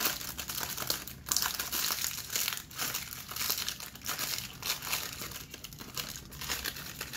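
Foil potato chip packet crinkling and crackling without a break as it is handled and opened.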